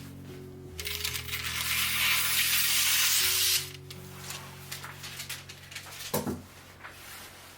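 A loud hiss lasting about three seconds that cuts off abruptly, over soft background music, followed by a few light clicks and a single clink.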